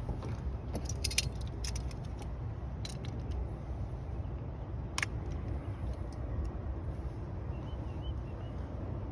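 Light metallic clicks and clinks of a fuel fitting and small parts being handled and fitted, a cluster in the first two seconds and single ones near three and five seconds, over a steady low background rumble.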